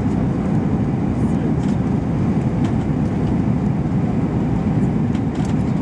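Steady low rumble inside the cabin of an Airbus A321-231, from its IAE V2500 jet engines and the airflow around the fuselage, with faint scattered ticks.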